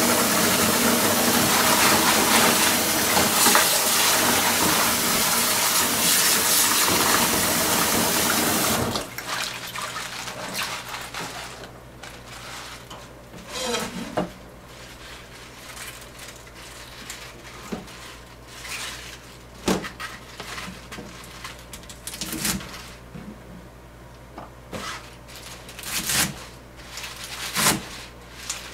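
Kitchen tap running hard while a bunch of spinach is rinsed, shut off suddenly about nine seconds in. Then rustling of the wet leaves and a few sharp knocks of a cleaver on a plastic cutting board.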